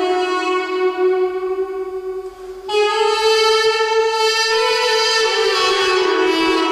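Armenian duduk playing a slow melody of long held reedy notes. The tone dips briefly a little over two seconds in, steps up to a higher note, then settles back to the lower note near the end.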